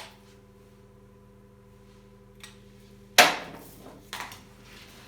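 Steady low electrical hum from a switched-on MIG welder set for gasless wire. About three seconds in comes a loud sharp knock, then a smaller one a second later.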